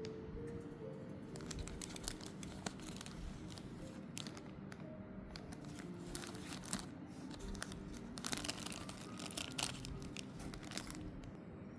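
Parcel packaging being handled and opened: plastic and paper wrapping crinkling, with tearing, in quick irregular rustles.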